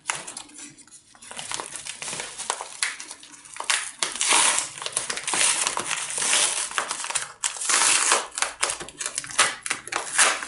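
Yellow 3M padded bubble mailer being torn open by hand: crinkling and crackling of the paper and bubble lining, with sharp rips. It gets louder from about four seconds in.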